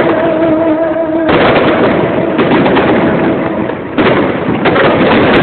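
Fireworks going off in a rapid crackling string of sharp pops, with a short break about four seconds in.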